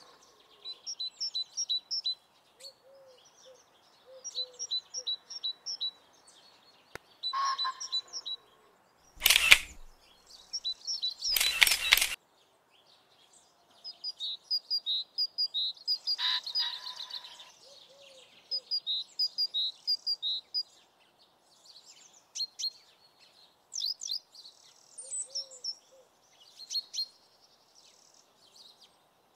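Several birds chirping and singing in short, quickly repeated phrases, with two brief loud bursts of noise a couple of seconds apart about a third of the way through.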